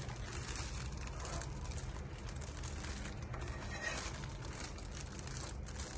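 A metal ladle stirring through a pot of chunky soup with soft, small liquid sloshes, over a steady low hiss and hum.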